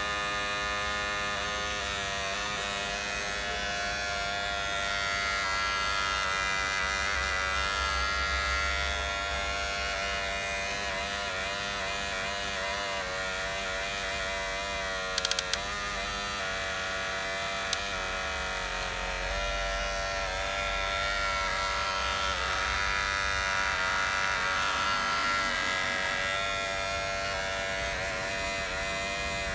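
Geared electric motors of a long-reach CAT 322D-style RC excavator whining as the boom, arm and bucket work the dirt, the pitch rising and falling as the motors change speed. A few sharp clicks come about halfway through.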